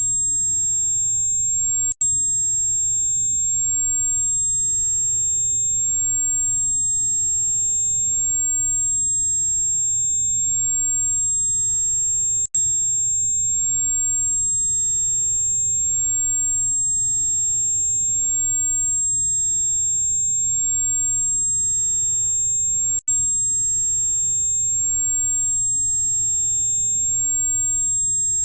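Steady, very high-pitched electronic tone of a tinnitus relief track, with fainter steady tones above and below it and a faint low hum beneath. It drops out for an instant three times, about ten seconds apart, and comes straight back each time.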